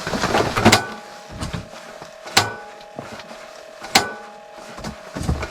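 Three sharp knocks about a second and a half apart, each ringing briefly, over a faint steady hum.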